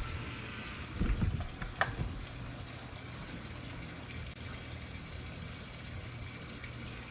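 Boat's electric trolling motor running with a steady low hum, with a few brief knocks about one to two seconds in.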